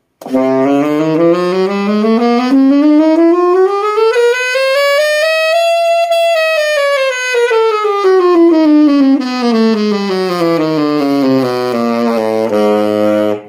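A brand-new tenor saxophone playing a note-by-note scale from the bottom of its range up to the top, about six seconds up, then back down again. It is played as a check for leaking pads, and the player finds no leaks.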